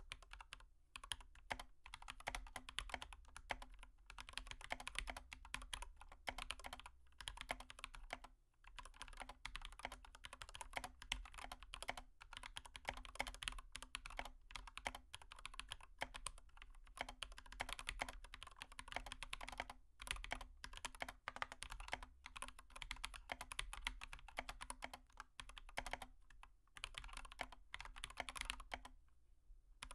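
Rapid, light tapping and clicking on a hard surface, irregular and nearly continuous, with a few short pauses, over a faint steady hum.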